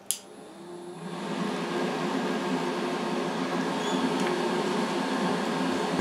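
A switch clicks and the small inline duct fan of a homemade cooler air conditioner spins up over about a second, then runs with a steady whirring hum.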